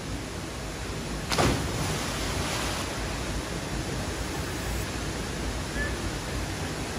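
Steady rush of a small waterfall and river cascade, with one splash about a second and a half in as a person jumps from a rock into the pool.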